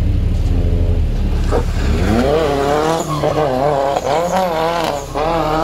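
Nissan 240SX drift car doing donuts: the engine runs hard at high revs, and from about two seconds in the spinning rear tyres squeal in a wavering pitch that rises and falls as the car slides around.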